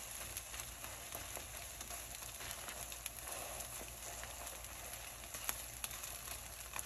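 Egg folded over cheese frying gently in a nonstick pan, a soft steady sizzle, with a few faint clicks of a metal spoon against the pan as the egg is pressed and turned.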